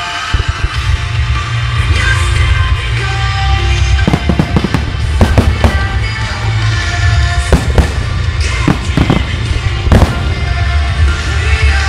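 Marugo fireworks display: shells and star mines bursting in a rapid string of bangs over a steady low rumble. Loud music plays on the show's sound system. The bangs pile up from about four seconds in.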